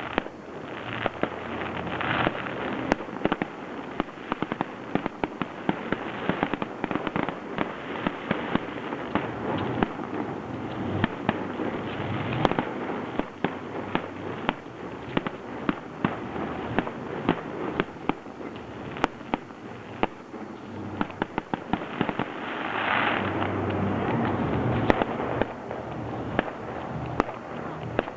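Aerial fireworks display: a dense, continuous run of shell bursts and sharp cracks, many a second, with swells of crackle about two seconds in and again a little over twenty seconds in.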